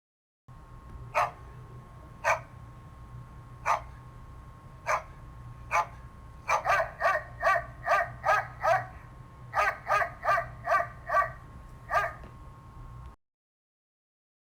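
A dog barking. It starts with single barks about a second apart, then breaks into two quick runs of barks at about three a second, and ends with one last bark. A steady hum sits under the barks.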